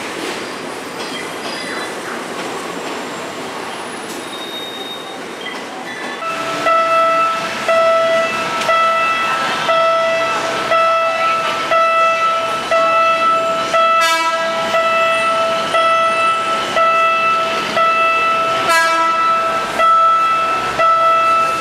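Train rumble for the first few seconds, then a level-crossing warning signal sounding in steady pulses about once a second as a PNR train approaches the crossing. Two louder, fuller-toned blasts, likely the train's horn, cut through about two-thirds of the way in and again near the end.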